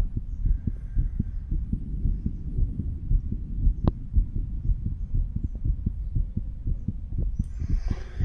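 A human heartbeat heard through a stethoscope on the chest: a steady run of low lub-dub thumps. A single sharp click comes about four seconds in, and a scratchy rustle near the end.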